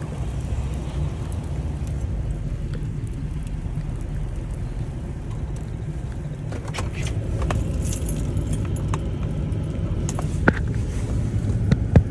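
Steady low rumble of a Chevrolet Tahoe driving through deep snow, heard from inside the cabin, with light rattles and ticks mostly in the second half.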